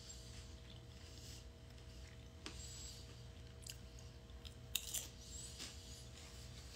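A person chewing a chocolate close to the microphone, with a few small crunches and mouth clicks scattered through, over a low steady hum.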